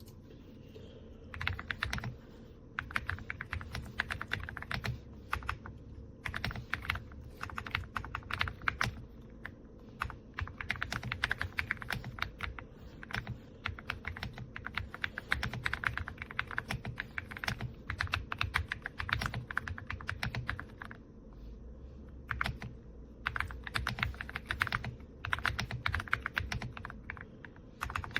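AULA F99 mechanical keyboard being typed on: fast runs of keystrokes broken by short pauses.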